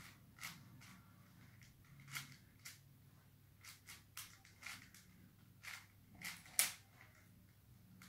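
A 5x5 Rubik's cube's plastic layers clicking as they are twisted by hand: about ten sharp clicks at irregular intervals, the loudest about two-thirds of the way through.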